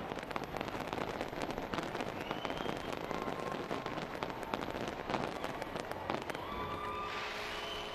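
Aerial fireworks crackling: a dense, rapid run of small pops from glittering crackle stars. About six and a half seconds in the popping thins into a steadier hiss with a few faint held tones.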